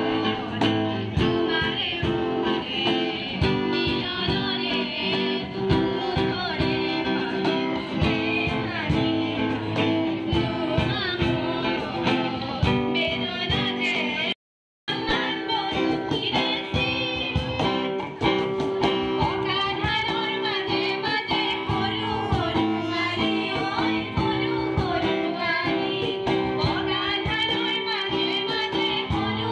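A group of young women singing a song together into a microphone, accompanied by a strummed acoustic guitar and a cajon beat. The sound drops out briefly about halfway through, then the song carries on.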